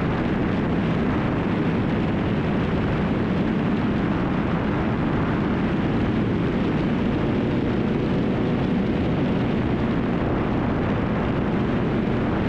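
Steady, even rush of engine and wind noise from a light propeller airplane in flight.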